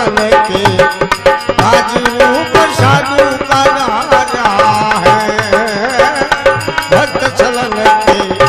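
Instrumental interlude of a Rajasthani bhajan: a harmonium plays the melody over a steady hand-drum rhythm.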